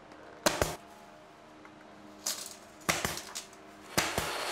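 Bostitch pneumatic brad nailer firing brads through a poplar baseboard into the wall studs: four sharp shots at irregular intervals. A steady hiss comes in near the end.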